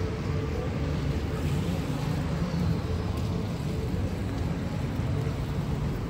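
City street ambience: a steady low rumble of road traffic.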